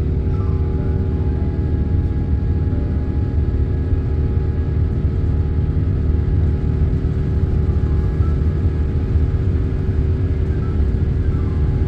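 Airliner engine and cabin noise during the climb after takeoff: a steady, deep rumble with several steady humming tones above it.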